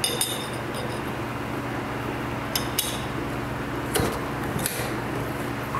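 Light metallic clinks and taps, about six in all, as small steel plates and screws are handled and fitted back onto an industrial sewing machine's bed, over a steady low hum.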